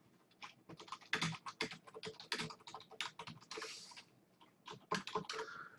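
Typing on a computer keyboard: a quick, irregular run of key clicks, pausing briefly about four seconds in.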